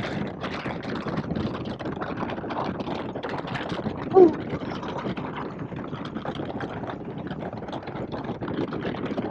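Wind rushing over a helmet intercom microphone on a moving 2021 Indian Scout Bobber, with the bike's V-twin engine running beneath it. There is one brief louder sound about four seconds in.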